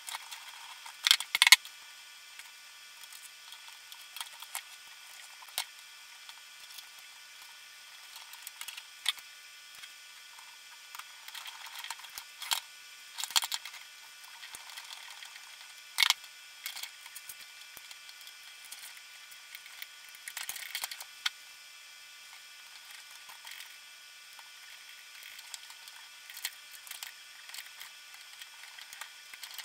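Sped-up workbench sounds of small tools on an RC truck chassis: scattered light clicks and taps of hex drivers and metal suspension link parts being handled, with a few sharper clicks standing out. The fast-forwarding leaves it thin and high, with no low end.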